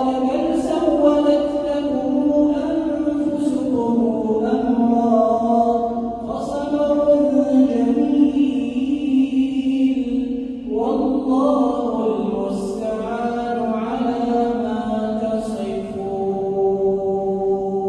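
A man's solo voice reciting the Quran in melodic tajwid style, drawing out long held notes. About eleven seconds in, the voice steps up to a higher pitch.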